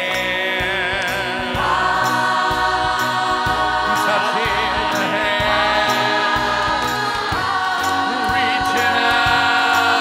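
Stage musical cast singing together with a live band, over held chords that change every few seconds.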